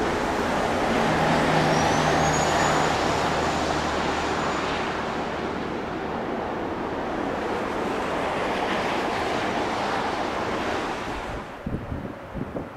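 CN freight train rolling past close by: a steady noise of cars and wheels on the rails, with a faint high wheel squeal for a few seconds near the start. The train noise cuts off abruptly about a second before the end, leaving gusts of wind on the microphone.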